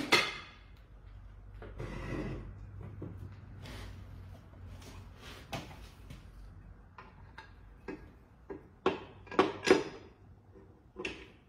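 Metal clunks and knocks as a Toyota R154 transmission in its bell housing is lifted and slid onto a Subaru engine, with a sharp knock at the start and a cluster of louder knocks about nine to ten seconds in as the housing meets the engine.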